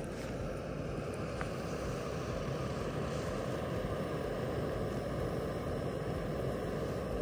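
Backpacking canister stove burning at a steady flame under a pot: an even gas rush.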